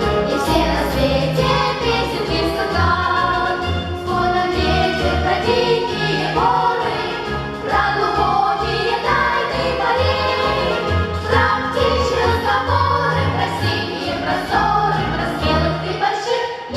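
A choir of voices singing a song with instrumental accompaniment and a steady bass line.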